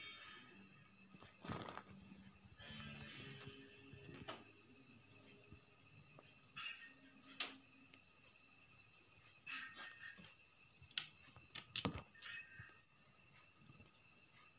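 Night insects: a steady high trill with a cricket chirping in quick even pulses, about four or five a second, broken by a few short pauses. A few faint sharp clicks are heard along with it.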